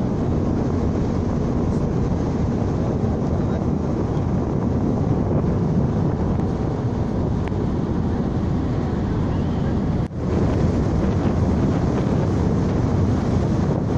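Wind buffeting the microphone over a steady low rumble, broken by a brief drop about ten seconds in.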